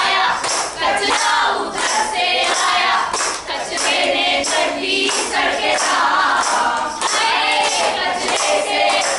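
A group of girls singing together in unison, over a steady beat of hand claps about two a second.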